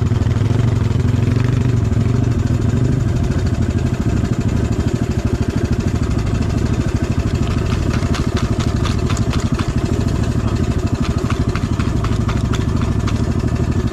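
ATV engine idling with a steady low pulse, with a run of sharp clicks or taps over its last few seconds.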